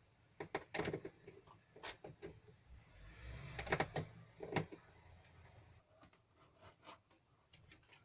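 Scattered clicks and knocks of hand work with tools and small parts, the loudest clustered in the first five seconds.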